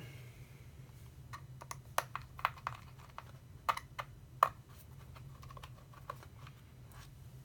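Light, irregular clicks and taps of a small screwdriver working the back-plate screws out of a 2013 MacBook Pro 13-inch's aluminium bottom case, about a dozen sharp ticks scattered over a few seconds, over a faint steady low hum.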